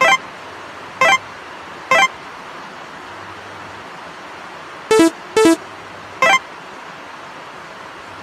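Short synthetic pop sound effects, one as each picture pops onto the screen: six quick pitched blips, three about a second apart, then a close pair and a last one, over a steady hiss.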